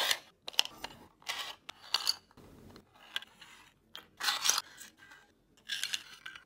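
3D-printed plastic puzzle pieces scraping and clicking against a 3D-printed plastic basket as they are handled and slid in, a series of short scrapes with brief pauses between them.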